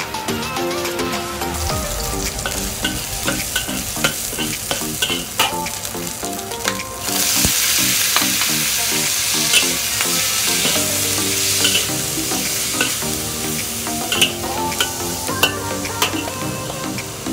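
Green beans stir-fried in a hot wok: the sizzle jumps louder about seven seconds in, as the beans go into the oil. A metal spatula scrapes and taps against the wok, and background music with a steady pattern of notes plays underneath.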